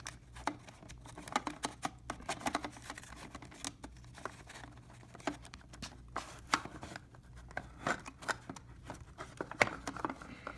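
3.5-inch floppy disks and their plastic storage case being handled, with many short, irregular hard-plastic clicks and knocks as a disk is pushed into the full case, which will not take it.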